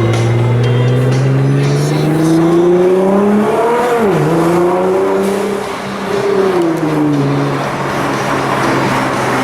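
Nissan GT-R twin-turbo V6 with a titanium exhaust, heard from inside the car, pulling hard with the revs climbing for about four seconds, then a sharp drop in pitch like a gear change. The revs climb again, jump briefly near six seconds, and then fall back to a steady lower drone as the car eases off.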